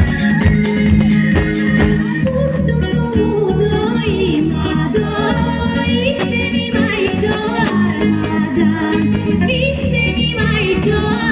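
Live Bulgarian folk song for a horo: a band with guitar plays a steady low backing, and from about two seconds in a woman sings long, wavering, ornamented lines over it.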